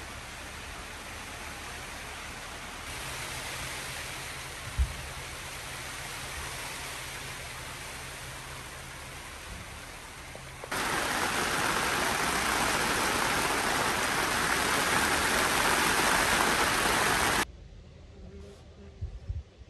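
Steady rain on a tent's fabric flysheet, an even hiss that gets clearly louder about halfway through, with one sharp tap about five seconds in. Near the end it cuts off suddenly to a much quieter background with a few faint knocks.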